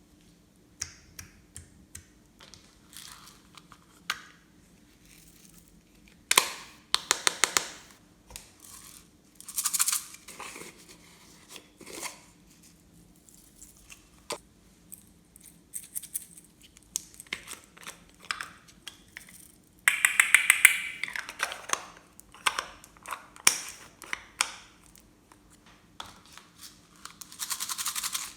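Glossy slime being squished and worked by hand, giving irregular bursts of rapid sticky clicks and crackles, loudest about twenty seconds in.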